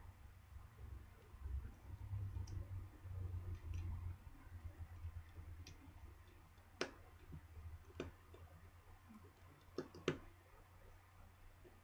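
Small sharp clicks and taps of a screwdriver and small phone parts being handled while the Samsung Galaxy Nexus's case screws are removed. There are a few scattered clicks, two close together near the end, over a low steady hum.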